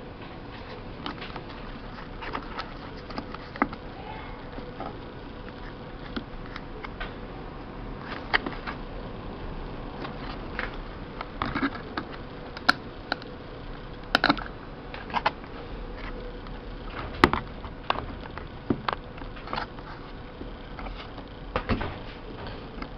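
Irregular sharp clicks and taps of fingers and pliers working a replacement hose and its clamps onto the heating-element tube of an opened electric drip coffee maker, over a steady faint background hum.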